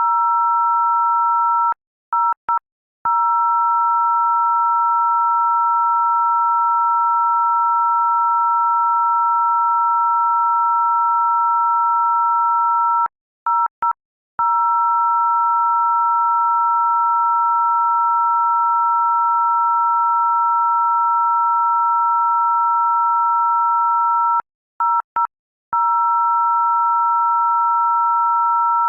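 Loud, continuous electronic two-note tone, like a telephone dial tone, with two steady pitches sounding together. It cuts out in a quick stutter of short gaps three times, about every eleven seconds.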